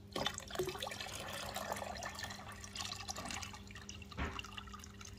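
Reverse-osmosis water poured in a steady stream from a plastic jug into a plastic tub of salt water, splashing and gurgling, with a single louder knock about four seconds in.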